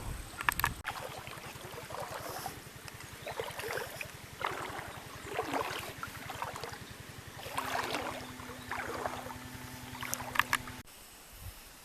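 A small boat's motor running with a rapid, even low pulse, with water splashing and rushing along the hull. A steady low hum joins over the last few seconds, and the sound cuts off abruptly near the end.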